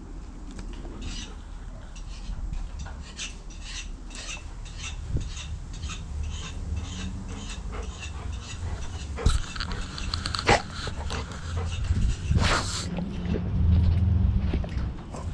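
Dog panting close to the microphone, about two to three breaths a second, over a low rumble from the collar-mounted camera moving on the dog. A few louder sharp sounds come about nine, ten and twelve seconds in.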